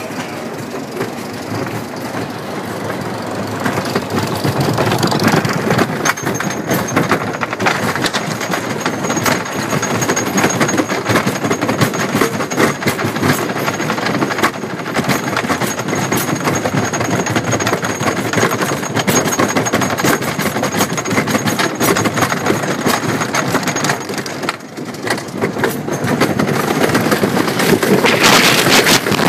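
Wooden roller coaster train, from a Philadelphia Toboggan Company coaster, rolling out of the station and climbing the chain lift hill, with rapid dense clicking from the lift chain and anti-rollback ratchet, and a faint high whine under it. Near the end the train crests the hill and picks up speed, and the rattle grows louder.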